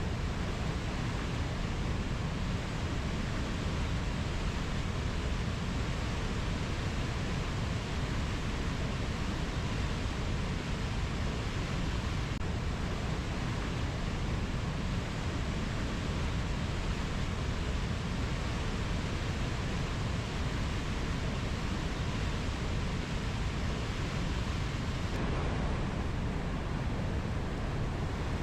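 Steady, even rushing of water, with no distinct animal calls standing out.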